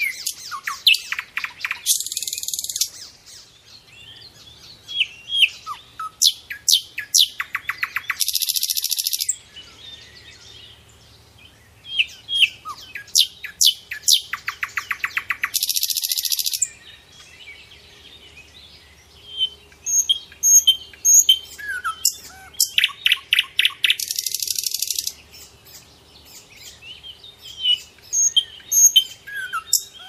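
Caged Eurasian hoopoes calling: sharp downward-sweeping chirps and fast rattling trains of clicks, broken by four harsh hisses of about a second each, spaced some six to eight seconds apart.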